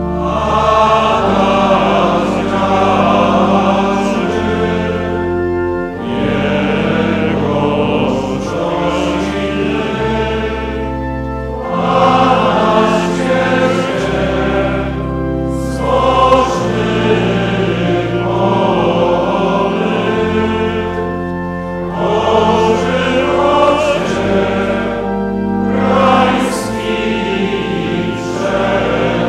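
Choir and congregation singing a slow Marian hymn in phrases of about four to six seconds with short breaks between them, over sustained low organ notes that change with each phrase.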